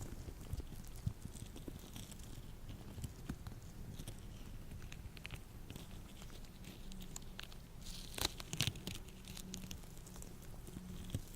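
Latex gloves on hands rubbing and being handled, giving irregular small crackles and rubbery clicks, with a short cluster of louder snaps about eight seconds in.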